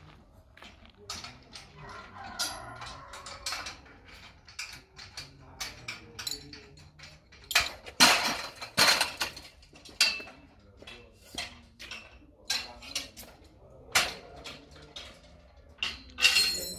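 A series of irregular sharp knocks and clinks, several of them ringing briefly like metal, with the loudest ones about eight and nine seconds in and again near the end.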